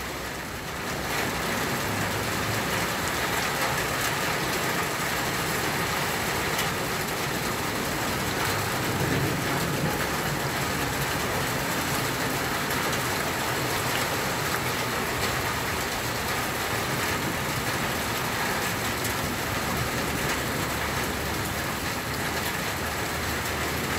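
Heavy rain falling steadily onto a flooded street, an even, unbroken hiss.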